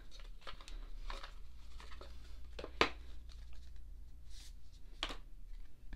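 Faint rustling and scattered small clicks of a photo card being taken out of its wrapping and handled, with a sharper click about three seconds in and another near the end.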